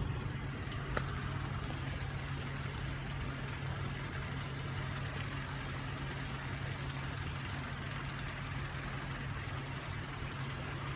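Steady background noise with a low hum, and a faint click about a second in; no chime tones are present.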